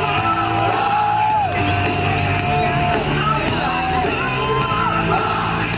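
Music with a singer holding long, sliding notes over a steady, stepping bass line.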